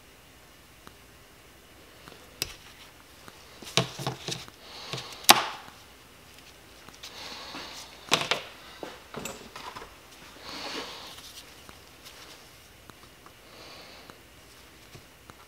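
Small sharp metal clicks and scrapes of pliers working the wrist-pin circlip out of a 2010 Yamaha YZ250F piston, scattered and irregular, the loudest click about five seconds in. A few soft breathy hisses come between them.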